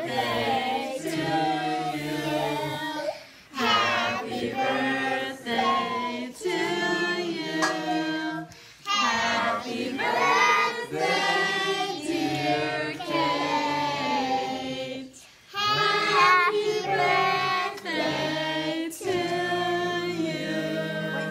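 Several voices singing together, children's voices among them, in long phrases broken by short pauses.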